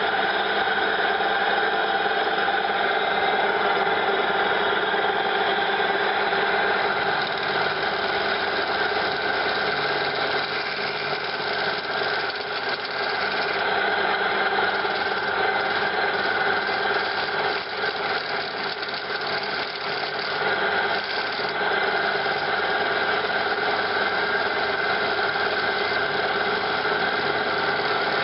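Homemade woodturning lathe running steadily, with a hand chisel scraping against the spinning workpiece. The material is so hard that the chisel barely cuts it.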